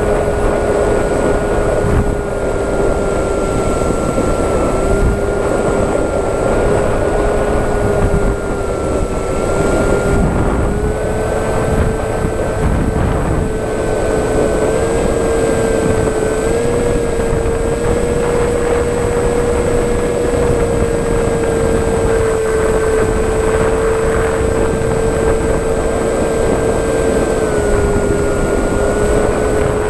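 Electric motor and propeller of an FPV model aircraft whining steadily, its pitch stepping up a little and back down near the end as the throttle changes, over steady wind rush on the onboard microphone.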